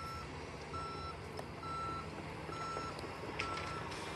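Reversing alarm of a heavy construction vehicle: a steady, even beep repeating about once a second, five beeps in all, over the low rumble of its diesel engine. A few sharp clicks or knocks come near the end.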